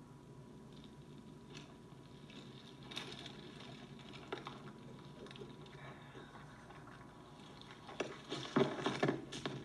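Dry reeds and twigs rustling and crackling as someone pushes through brush. It is faint with scattered snaps at first, then turns louder and denser about eight seconds in.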